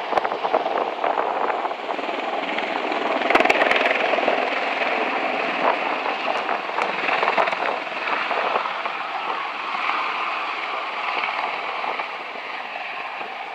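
Bell Boeing V-22 Osprey tiltrotor climbing away after takeoff in helicopter mode, its two big proprotors and twin turboshaft engines making a loud, steady noise. It is loudest a few seconds in and slowly fades as the aircraft moves off.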